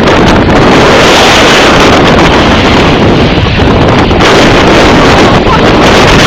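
Jet airliner engines at takeoff thrust, a loud steady roar, with the jet blast buffeting the microphone.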